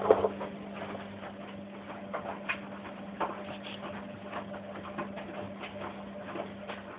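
Washing machine running with a steady low hum, over irregular light taps and clicks, the loudest a knock just after the start. The hum cuts off at the very end.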